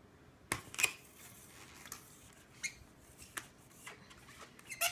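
Long latex modelling balloon being handled and twisted: a few scattered short rubbery squeaks and creaks, the loudest about half a second and about a second in.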